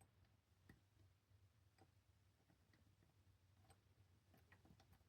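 Near silence broken by faint, irregular clicks of a lock pick and tension wrench working the pin stack of a Master Lock 410 lockout padlock.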